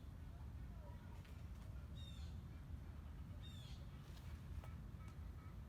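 A bird giving short repeated calls, about every second and a half, over a low steady rumble.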